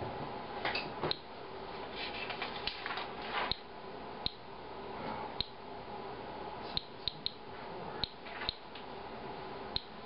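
Inspector Alert Geiger counter clicking, about a dozen short, sharp ticks at random intervals, each tick one detected radiation count. Faint rustling can be heard in the first few seconds.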